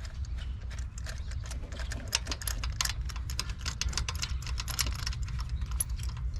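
Rapid, irregular metallic clicking of a ratchet wrench on an extension as a spark plug is worked loose by hand, over a steady low hum.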